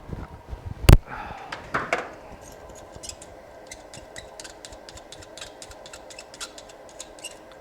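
One sharp, loud click about a second in, then faint scattered clicks and taps of small tools being handled on a repair bench, over a steady hum.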